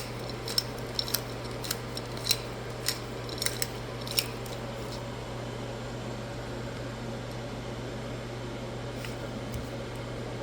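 Light, sharp clinks of small utensils against dishware, about a dozen irregular taps over the first four seconds, then stopping. A steady low hum continues underneath.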